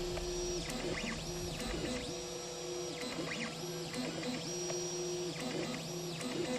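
3D printer's stepper motors whining as the print head moves, the tone holding for a second or so per move and gliding up and down in pitch as each move speeds up and slows down.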